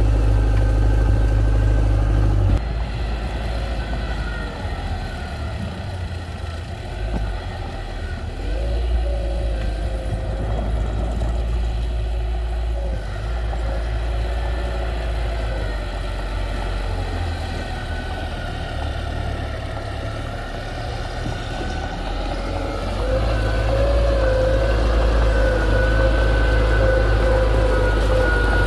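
Heavy diesel engine of construction machinery running, with a wavering whine over the engine. The sound drops abruptly about two and a half seconds in and grows louder again near the end.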